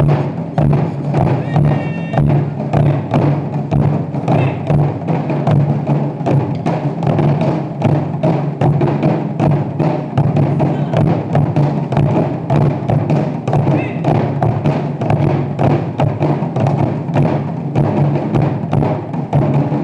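Japanese taiko drums played by an ensemble, a fast, steady run of deep drum strokes mixed with sharp wooden clacks.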